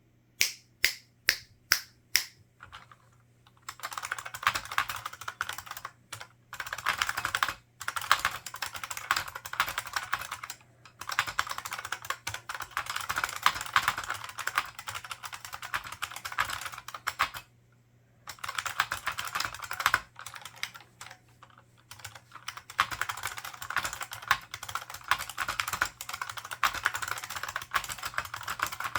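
Typing on an IBM 4683 ANPOS keyboard with membrane buckling-spring switches and PBT dye-sublimated keycaps. About six single keystrokes come first, a few per second; then comes long fast typing, a dense run of clicks broken by a few short pauses.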